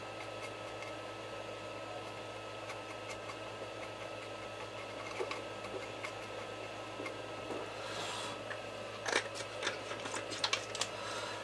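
Steady low electrical hum with a few constant tones, with faint scattered ticks, a brief hiss about eight seconds in and a few small clicks and knocks near the end.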